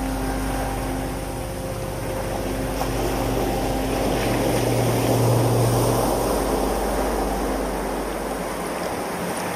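Seawater washing through rocky tidepools, with a surge of surf that swells and fades around the middle, layered with sustained low musical drone tones; the deepest drone drops out near the end.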